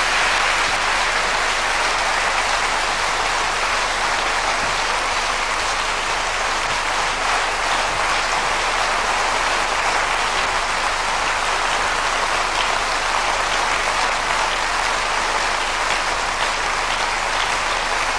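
A large audience applauding steadily and at length.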